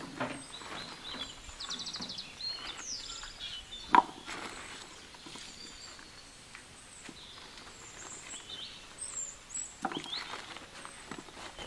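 Taro tubers dropped into a wooden bowl, knocking against the wood, with one sharp, loud knock about four seconds in and a few more near the end. Birds chirp and trill in the background.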